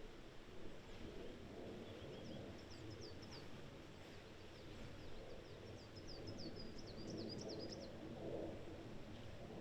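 Coal tit singing high, thin chirped notes in two phrases, the second, about six seconds in, a quicker run of notes. A steady low background hiss runs underneath.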